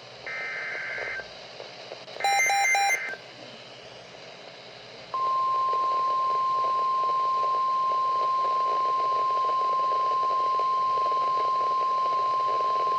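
NOAA Weather Radio Emergency Alert System alert. Two short warbling SAME data bursts sound in the first three seconds, the second louder. About five seconds in, the steady single-pitch 1050 Hz warning alarm tone starts and holds, heralding a warning broadcast.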